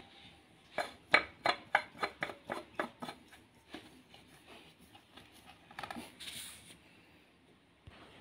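A quick run of light metallic clicks, about four a second, then a few scattered taps and a brief rustle, as a spin-on oil filter is fitted by hand to the filter housing of a Renault Clio 1.2 16v engine on the bench.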